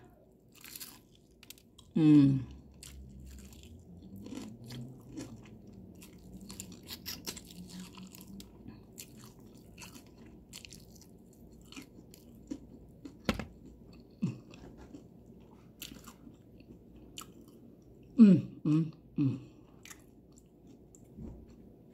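Close-miked chewing of crispy fried chicken with its skin, wet mouth sounds broken by many sharp crunches and crackles scattered irregularly throughout. There are short hummed vocal sounds about two seconds in and a few more near the end.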